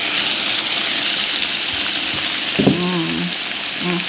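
Thin-sliced beef sizzling on the grill plate of a hot pot: a steady, even hiss. A short voice sound comes in about two and a half seconds in, and again briefly near the end.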